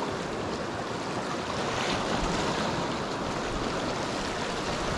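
Small waves washing and breaking over a rocky shoreline, a steady rush of surf that swells slightly about two seconds in, with wind rumbling on the microphone.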